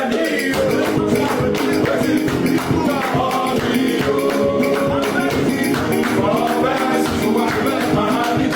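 Gospel music: several voices singing together over busy, steady percussion.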